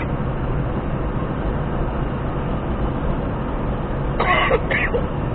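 Steady road and engine noise of a car driving at highway speed, heard from inside the cabin. A short, brief noise stands out about four seconds in.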